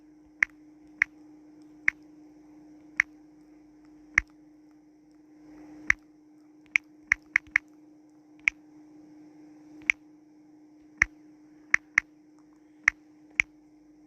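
Clicks of typing on a phone's touchscreen keyboard: sharp single clicks at uneven intervals, about one a second, with a quick run of four near the middle, over a faint steady hum.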